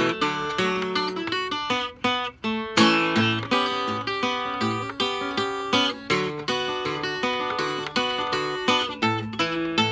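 Acoustic guitar played solo fingerstyle, a ragtime tune with picked melody notes and chords over a steady, bouncing beat of bass notes.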